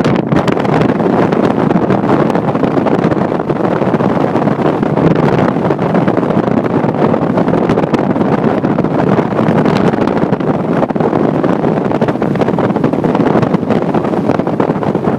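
Loud, steady rushing noise of a vehicle driving through a snowstorm, with wind buffeting the microphone.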